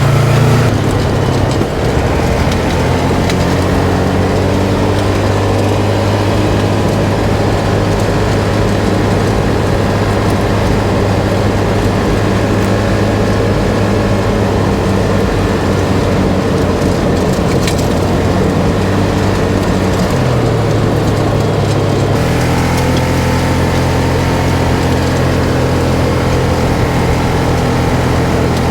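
Polaris RZR 570 side-by-side's single-cylinder engine running steadily while driving along a dirt track. Its note drops about a second in, then dips and comes back up around twenty seconds in as the throttle changes.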